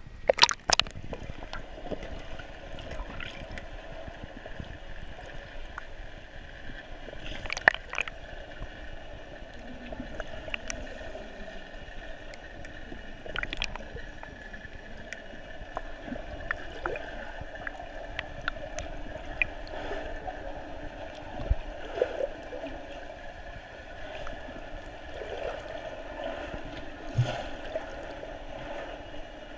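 Underwater sound in a swimming pool: a steady hum with gurgling and scattered sharp clicks and knocks. Right at the start there is a short splashy burst as the view goes below the surface, and one louder click comes a little before the halfway point.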